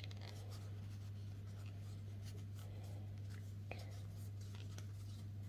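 Crochet hook drawing thick textile (T-shirt) yarn through stitches: soft scratchy rustling with a few faint light ticks, over a steady low hum.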